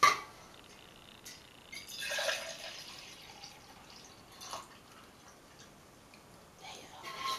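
Water being handled in a plastic water bottle: a sharp clack at the start, a short splash of water about two seconds in, and a lighter knock a couple of seconds later.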